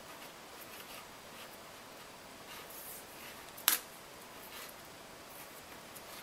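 Faint rustling and scraping of hands twisting a tape-wrapped wire stem around a wire wreath frame, with one sharp click a little before four seconds in.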